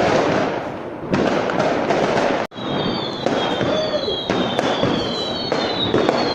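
Many fireworks going off at once: a dense, continuous crackle with repeated sharp bangs, and from about halfway several high whistles sliding slowly down in pitch.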